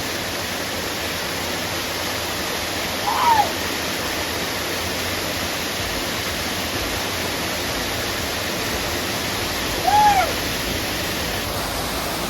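Waterfall pouring steadily, an even rush of falling water. Two short pitched calls rise over it, one about three seconds in and one near the end.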